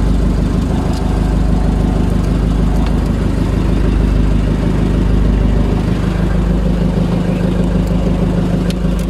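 Fishing boat's engine running steadily at an even, unchanging pitch, with a couple of faint ticks.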